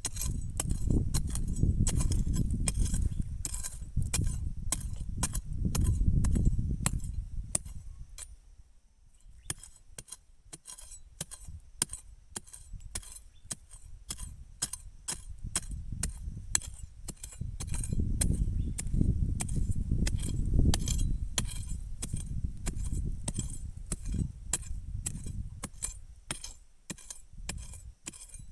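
A flat-bladed metal digging tool chopping and scraping into dry, stony soil and roots. It gives rapid sharp clinks over dull low thuds, with a let-up about eight seconds in before the work picks up again.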